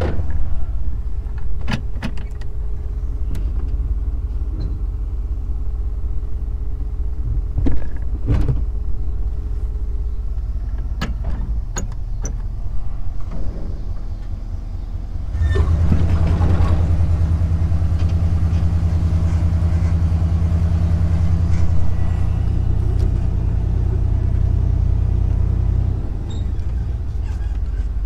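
Pickup truck engine running as the truck drives slowly, with a few knocks and rattles in the first half. The engine grows louder about halfway through and drops back shortly before the end.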